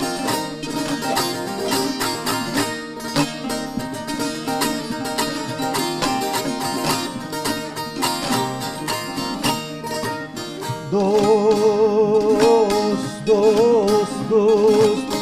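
Several bağlamas (long-necked Turkish saz) played together in a fast, steadily picked instrumental passage of an Alevi deyiş. About eleven seconds in, a male voice comes in over them with a wavering, ornamented sung line and the music grows louder.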